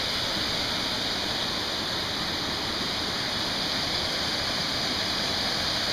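Small forest waterfall splashing into a rocky stream: a steady rushing hiss of falling water.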